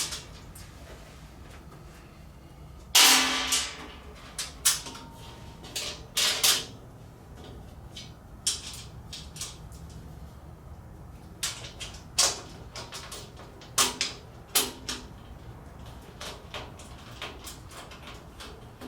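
Scattered metal clicks and clanks of bolts, nuts and the steel tool cart's shelf and posts being handled and fastened by hand. The loudest is a clank with a brief ring about three seconds in.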